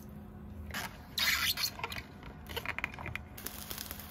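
Small food-handling sounds over a bowl of ramen broth: a few short rustles, scrapes and liquid drips, loudest a little over a second in.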